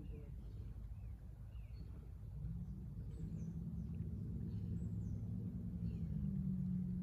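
A low engine hum that swells from about two and a half seconds in, while small birds chirp now and then.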